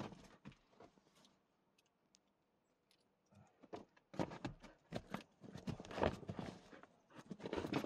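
A dog shuffling about on a fabric seat cover on a car's back seat: scattered rustles and paw scrapes. After a quiet stretch of a couple of seconds these pick up into a busy run of rustling.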